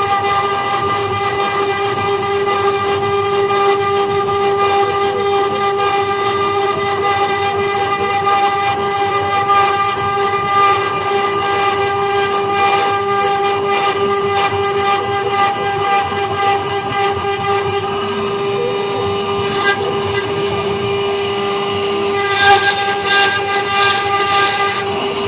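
5-axis CNC wood-carving machine's spindle whining at a steady high pitch while its cutter mills a relief into a wooden board, over the rasp of wood being cut. Near the end the cutting turns sharper and clickier for a few seconds.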